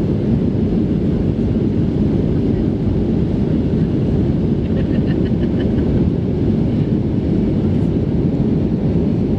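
Steady low rumble of airflow and engine noise inside the cabin of an Airbus A319 in flight, heard from a window seat.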